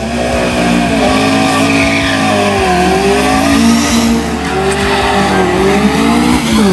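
Engine of an open-cockpit Seven-style sports race car revving hard. Its pitch climbs and falls several times.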